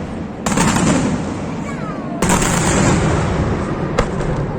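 Aerial fireworks shells bursting: two heavy bangs about half a second and two seconds in, each trailing off in a long rumbling echo, then a single sharp crack near the end.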